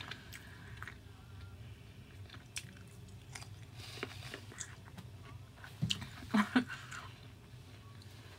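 Close-miked chewing of carne asada fries with shrimp: soft, wet mouth clicks and smacks, with a cluster of louder mouth noises about six seconds in.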